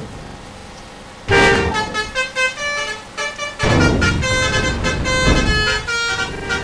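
Telolet-style basuri musical air horns on a bus playing a quick tune of pitches that step up and down, starting about a second in. A low rumble joins underneath from about halfway.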